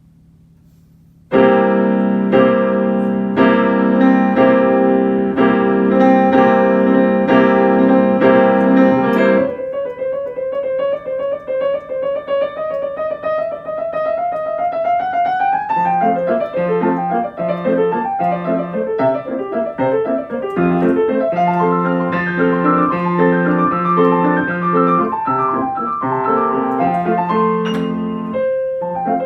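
Solo piano playing a waltz. After about a second of quiet come repeated loud chords, then a quick run of notes climbing in pitch, then a melody over a steady waltz accompaniment.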